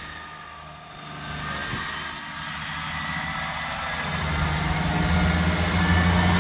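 Class 158 diesel multiple unit running along the platform, the rumble of its underfloor diesel engine growing louder from about four seconds in as the train draws close.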